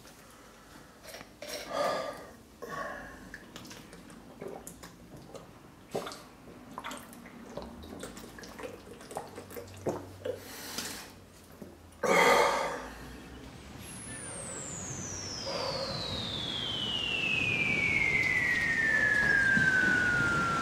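Water drunk from a plastic bottle: handling crinkles and swallows, with a short loud burst about twelve seconds in. Then a long, clean whistle glides steadily down from very high to mid pitch over about seven seconds, over a rush that slowly grows louder.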